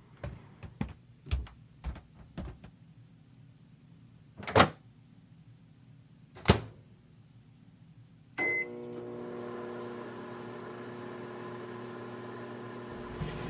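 Microwave oven being used: a run of small clicks and taps, two louder knocks, a short beep about eight seconds in, then the oven starts running with a steady hum.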